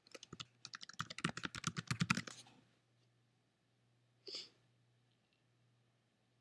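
Fast typing on a computer keyboard: a quick run of keystrokes for about two and a half seconds, entering a password, then it stops. One brief soft sound follows about four seconds in.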